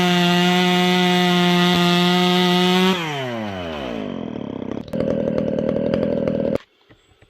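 Chainsaw running at high, steady revs, then the throttle is released about three seconds in and the engine note falls away toward idle. A rougher, lower rattle follows for under two seconds before the sound cuts off abruptly.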